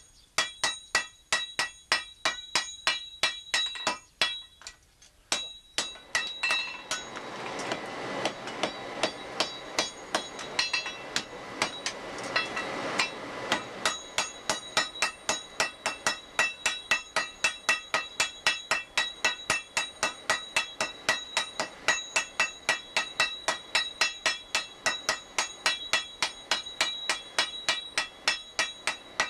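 Blacksmiths hand-forging red-hot iron on an anvil: the smith's hand hammer and two strikers' sledgehammers hit in turn in a fast, even rhythm of about three blows a second, each blow ringing off the anvil. The blows pause briefly about four seconds in, and a rushing noise runs under them for several seconds in the middle.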